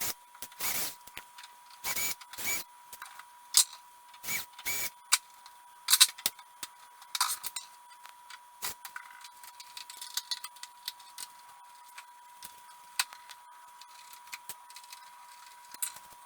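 Metal hand tools being handled: irregular clinks, clicks and a few sharper knocks, with no steady rhythm.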